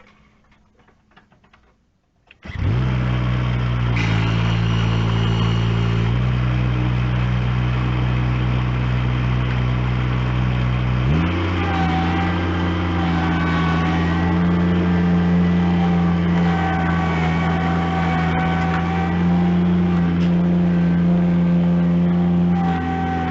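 An engine starts suddenly about two and a half seconds in and runs steadily, then is throttled up about halfway through and keeps running at the higher speed, with a higher wavering whine over it.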